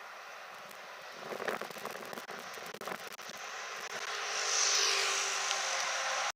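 Jet engine noise of an Airbus A330-200 on its takeoff run, growing louder and uneven from about a second in and loudest about three-quarters of the way through.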